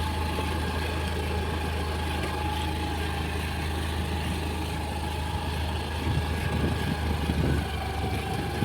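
Scooter engine running steadily, with a rougher, uneven rumble joining about six seconds in.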